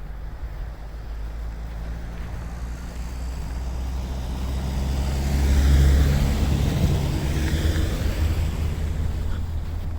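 A motor vehicle passes close by on the road. Its low engine hum and tyre noise build to a peak about six seconds in, then ease off.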